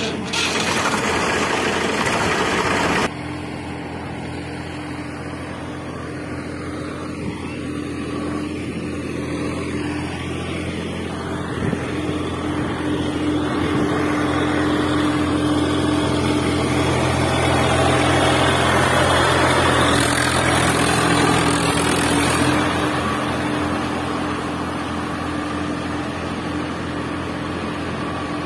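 Steady engine-like hum with a low drone and a held tone, swelling a little past the middle, after a loud rushing noise in the first three seconds.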